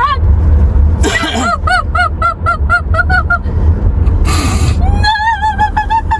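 A person singing in a high, warbling, honking voice: a quick run of about nine short notes, then a wavering held note near the end, over the low rumble of a moving car.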